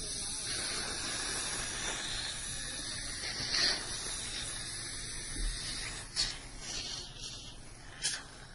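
Dental water syringe spraying to rinse the teeth: a steady hiss for about six seconds, then a few short clicks.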